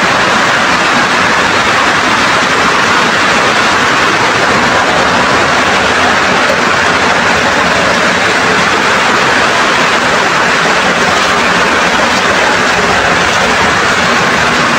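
Loud, steady rushing of water, an even noise without a break or change.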